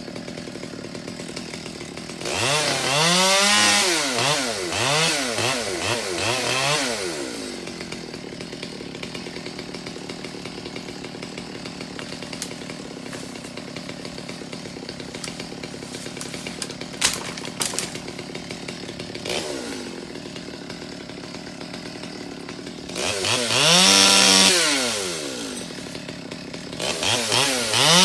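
Chainsaw engine idling steadily, then revved up and down in a run of quick bursts early on and again near the end, as in short cuts through branches.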